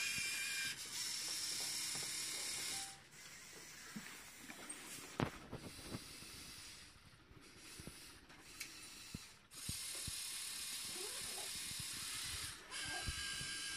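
LEGO Mindstorms EV3 motors and Technic gears whirring as the warehouse crane, conveyors and robotic arm drive to their starting positions (homing at start-up). Steady whirring for the first few seconds and again for a few seconds past the middle, with scattered clicks and knocks of plastic gearing in between.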